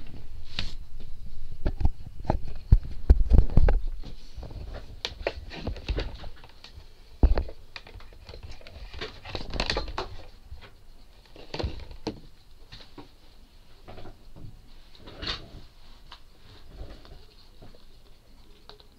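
Irregular clicks and taps with muffled thumps, loudest and densest in the first four seconds, then thinning to scattered fainter clicks.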